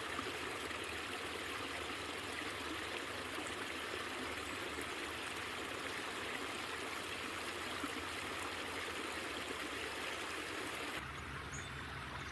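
Steady running water, a stream trickling and splashing. About a second before the end it cuts to a quieter background with a low hum.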